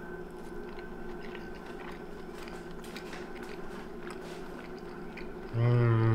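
A person chewing a mouthful of stuffed lobster tail, with soft mouth clicks and smacks. Near the end comes a loud, low, drawn-out "mmm".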